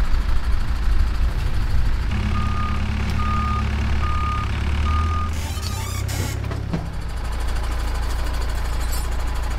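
A rail-converted truck's engine runs steadily, with four evenly spaced reversing beeps starting about two seconds in. A brief hiss follows just after the beeps.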